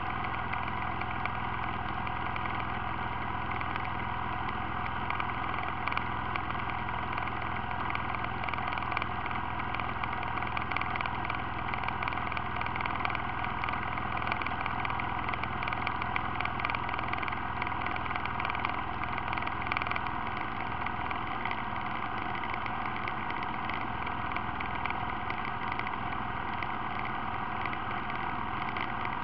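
ATV engine idling steadily, heard close up from a camera mounted on the quad.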